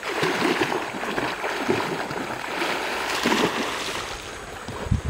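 A Rhodesian Ridgeback puppy splashing and running through shallow creek water: irregular sloshing and spraying. A loud low thump near the end.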